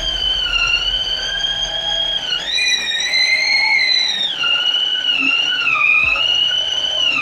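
Preethi Zodiac mixer grinder's motor running with a steady high whine as it kneads chapathi dough in its food-processor bowl. The pitch rises about two and a half seconds in and falls back a couple of seconds later.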